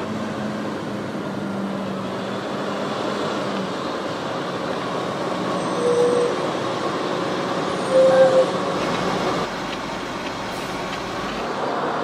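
Massey Ferguson tractor engine running under load as it pulls a large loaded push-off silage trailer past, a steady rumble with two short squeals about six and eight seconds in.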